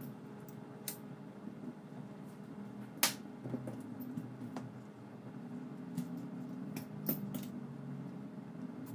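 A scattering of small sharp clicks and ticks over a steady low hum. The loudest click comes about three seconds in, and two close clicks come near seven seconds.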